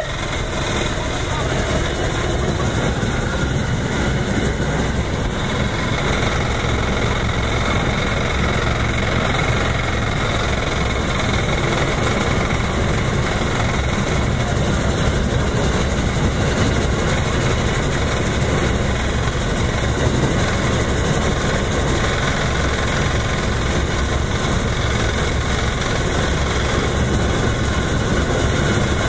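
Mount Washington Cog Railway steam locomotive working on the rack railway, a steady loud rumble and rush of mechanical noise with no let-up.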